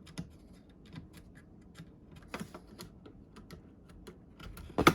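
Small scattered plastic clicks and taps as a DDR4 RAM stick is lined up and pressed into a motherboard memory slot, with a louder cluster of clicks near the end as it seats in the slot's latch.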